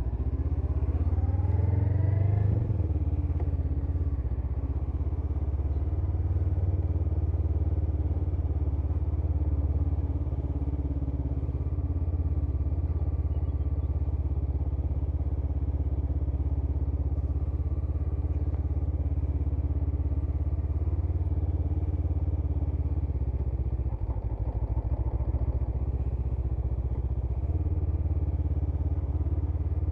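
Honda CMX500 Rebel's parallel-twin engine pulling away, its pitch rising over the first couple of seconds, then settling into a steady drone.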